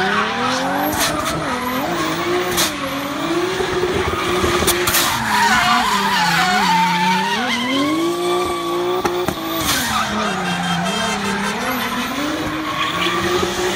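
Nissan 200SX drift car spinning donuts: the engine held high in the revs, its pitch rising and falling over and over as the throttle is worked, over the continuous screech of the rear tyres sliding on asphalt.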